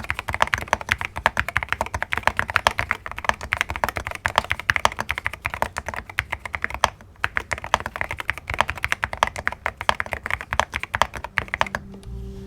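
Fast continuous typing on an Akko MU02 wooden-cased mechanical keyboard, a dense run of key clacks with a short pause about halfway through. The typing stops just before the end.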